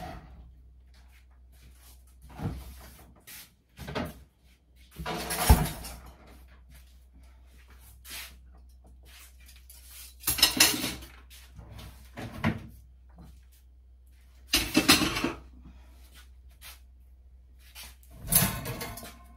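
A series of knocks and clatters, about seven spread out with pauses between them, the loudest a sharp thump about five and a half seconds in: kitchen cupboard doors and drawers being opened and shut and things being put away.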